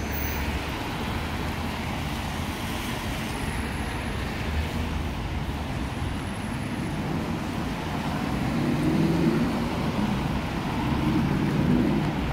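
Road traffic on a rain-wet street: a steady hiss, with a deeper vehicle rumble building and getting louder from about eight seconds in.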